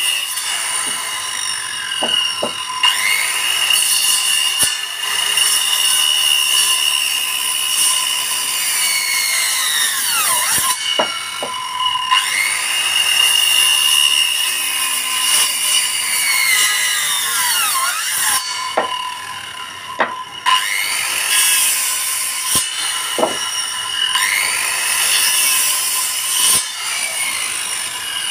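Handheld electric circular saw ripping along the sides of a wooden block to cut tenons. It runs with a high whine whose pitch sags as the blade loads up in the cut and climbs back as it frees. The saw briefly lets up about ten seconds in and again around two-thirds through, with a few knocks of the wood between passes.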